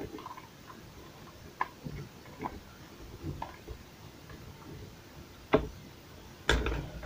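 Scattered light clicks and taps of a partly disassembled Bort angle grinder's plastic housing and small parts being handled, with a sharp click about five and a half seconds in and a louder knock about a second later.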